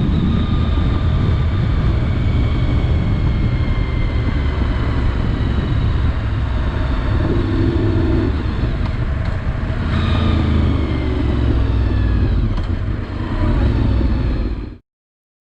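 Honda VFR750's V4 engine running on the move, with heavy wind rumble on a helmet-mounted camera's microphone. The engine's pitch falls slowly, then rises again about ten seconds in, and the sound cuts off suddenly near the end.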